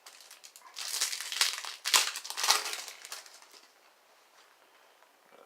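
Crinkling of a trading-card pack's foil wrapper being opened and handled, a run of sharp crackles lasting about three seconds and then fading to faint rustling.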